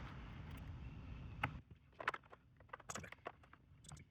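Faint, scattered clicks and small taps of a screwdriver and parts being handled during the teardown of the drum machine's case, over a low hiss that drops away about a second and a half in.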